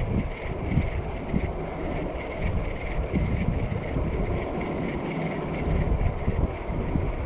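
Wind buffeting the microphone: a gusting low rumble that swells and eases.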